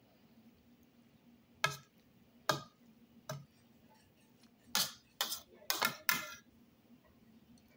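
A metal spoon clinking against a ceramic bowl while tossing a salad of string beans. There are about eight sharp clinks with a brief ring, unevenly spaced, and several come close together in the second half.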